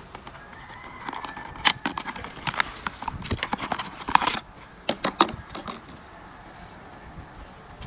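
Small cardboard box being opened by hand and a plastic LNB slid out of it: a quick run of crackles, taps and light scrapes of cardboard and plastic between about one and five and a half seconds in.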